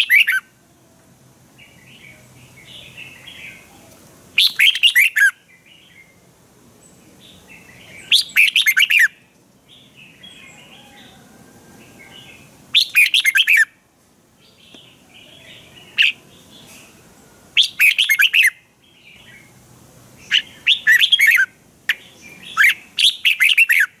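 Red-whiskered bulbul singing: short, loud phrases of quick high notes, each about a second long, repeated about every four seconds, with fainter chirping in between.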